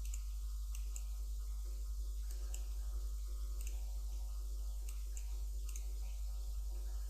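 Computer mouse clicking irregularly, single sharp clicks about once or twice a second, over a steady low electrical hum picked up by a poor desk microphone.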